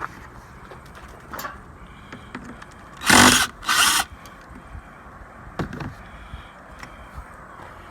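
Power tool running in two short bursts about three seconds in, each roughly half a second long, among a few quieter clicks and knocks.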